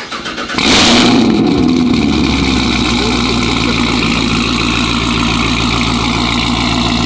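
Chevrolet Camaro ZL1's supercharged 6.2-litre V8 cranking for a moment, then catching with a loud flare of revs about half a second in. It then settles into a steady cold-start idle.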